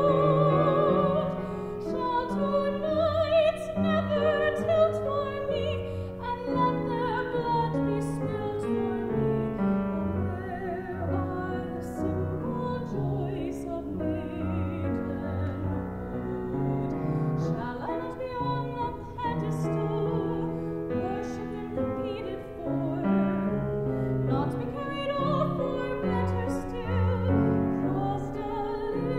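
Female voice singing a musical-theatre song in a classical, operatic style with wide vibrato, accompanied by a grand piano.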